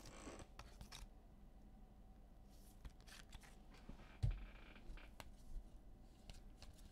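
Faint handling of trading cards and their packaging: light scrapes, clicks and scratchy rustling, with one dull thump about four seconds in.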